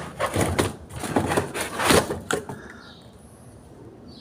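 A cardboard protective insert being pulled out of the tub of a new Whirlpool top-load washer: a quick run of scrapes, rustles and knocks over the first two and a half seconds.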